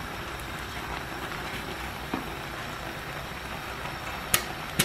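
Spicy tteokbokki sauce sizzling steadily in a frying pan on the stove, with two sharp taps near the end.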